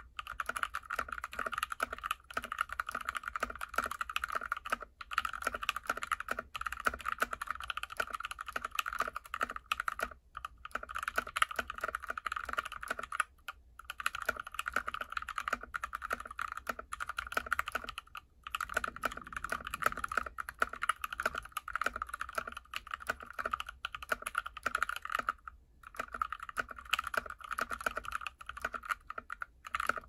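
Steady, fast typing on a GK61x mechanical keyboard with an aluminium plate, Krytox-lubed Tealios v2 linear switches and cherry-profile PBT keycaps: a dense, clacky patter of keystrokes with the spacebar's thocks among them, broken by a few brief pauses.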